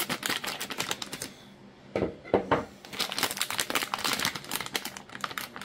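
Clear plastic zip-top bag holding a circuit board crinkling as it is handled and opened: a dense run of crackles, with a short lull about a second and a half in.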